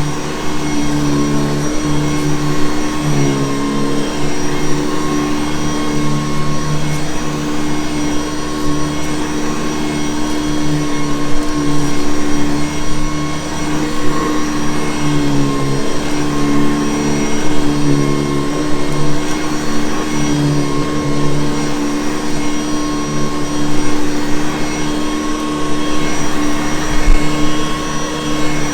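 Hoover Convertible U4387 upright vacuum cleaner running steadily, its motor pitch dipping briefly a couple of times.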